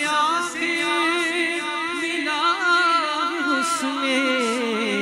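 A man singing a naat, drawing out long, wavering held notes without words, over a steady hummed vocal backing.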